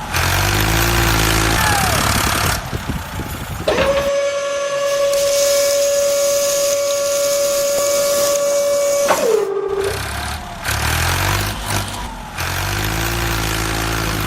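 Vehicle engine revving with rising pitch, then a single long steady horn blast of about five seconds that sags in pitch as it cuts off, then the engine revving again.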